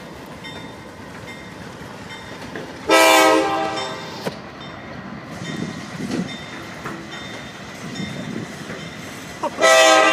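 A locomotive horn sounds two blasts, one of about a second some three seconds in and another starting near the end, over the steady running noise of a train.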